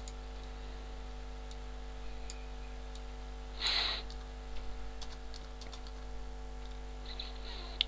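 Light computer keyboard keystrokes and mouse clicks, with a quick run of taps a little after halfway, over a steady electrical hum. A short hiss comes just before the taps.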